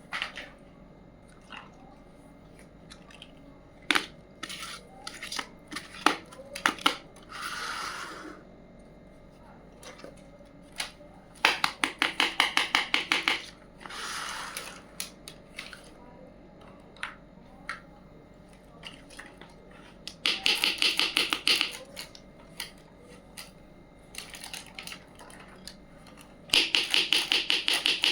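Small pieces of a miniature toy kitchen set being handled: scattered sharp clicks and taps, with three runs of rapid ticking of about two seconds each and a couple of short scrapes.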